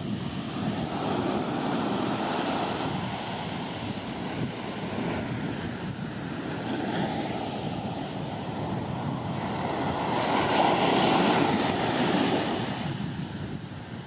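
Large ocean waves from a typhoon swell breaking on the beach: a steady wash of surf that swells to its loudest about ten to twelve seconds in.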